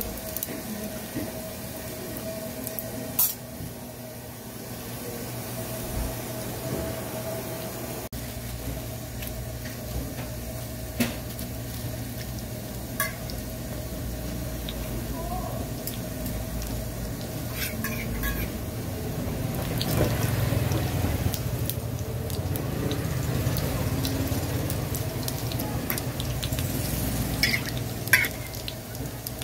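Hotteok frying in oil on a flat steel griddle: steady sizzling over a low hum, with a few sharp metal clinks as a steel spatula and hotteok press strike the griddle.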